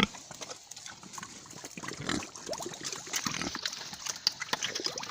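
Pig grunting in short low calls several times, with scattered small clicks and knocks.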